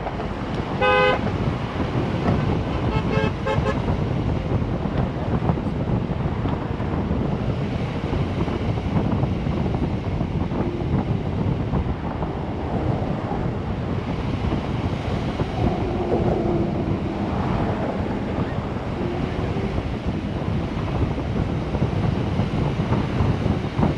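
Steady wind buffeting the microphone and road noise from a car driving at speed. A short car horn toot sounds about a second in.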